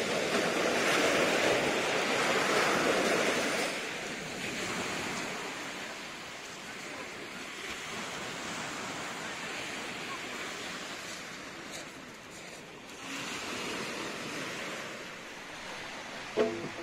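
Sea surf washing on the shore, a steady rush that is stronger for the first few seconds and then eases. A brief sharp sound near the end.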